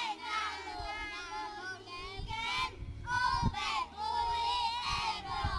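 A group of young children singing together in high voices, a wavering sung line.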